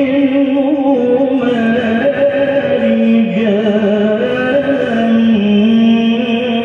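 A man reciting the Qur'an in melodic tilawah style, holding one long ornamented note with a wavering pitch that dips lower in the middle and climbs again near the end.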